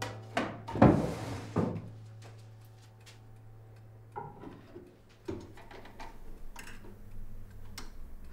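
Vinyl record and turntable being handled: a few knocks and clicks, the loudest about a second in, then softer clicks and faint crackle as the record is set up to play, over a low steady hum.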